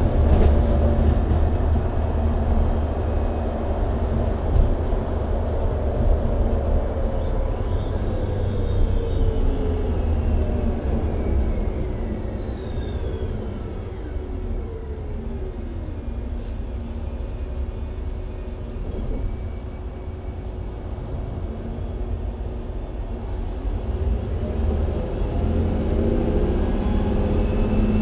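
Mercedes-Benz Citaro C2 G NGT hybrid articulated bus with a Voith automatic gearbox heard from inside while riding: a steady engine and road rumble. A whine from the drivetrain falls in pitch and the running quietens about a third of the way in as the bus slows, then the whine rises again and the engine gets louder near the end as it pulls away.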